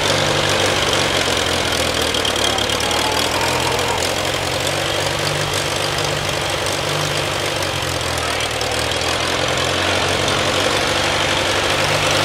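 Farmall A tractor's four-cylinder gasoline engine idling steadily.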